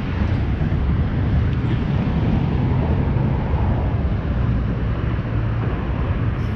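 Steady low rumble of wind buffeting a body-worn camera's microphone, with no distinct events.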